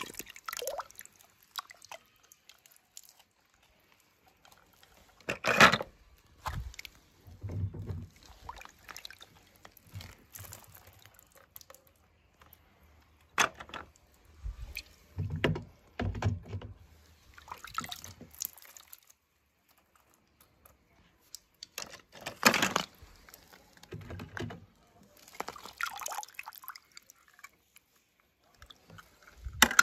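Water sloshing and splashing in short, irregular bursts with quiet gaps between them, a few louder than the rest, as small toy cars are dipped and moved about in it.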